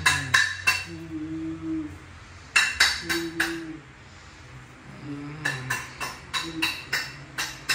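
Ice being cracked at the kitchen counter: sharp, ringing knocks in three quick runs, the longest near the end at about four knocks a second. A low humming tone sits under the knocks.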